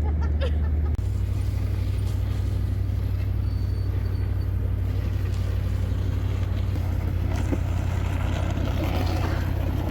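1985 Chevrolet K5 Blazer's 6.2 L GM diesel V8 running steadily under way, a low drone whose pitch steps about a second in.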